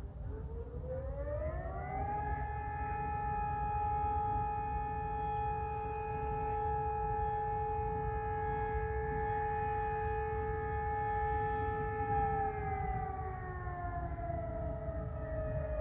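Civil-defence warning siren sounding a test signal. Over the first two seconds it rises to a steady two-note chord, holds it for about ten seconds, then begins to fall in pitch near the end as it winds down.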